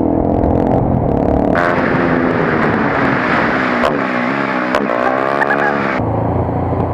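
Motorcycle engine running while riding over cobblestones, with rough road noise from the tyres. Past the middle the engine pitch drops and then rises again as the bike slows and pulls away.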